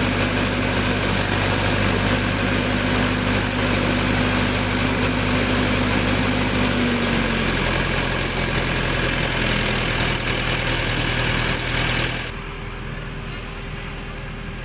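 Heavy diesel machinery engine running steadily at idle. About twelve seconds in the sound drops abruptly to a quieter, duller engine hum.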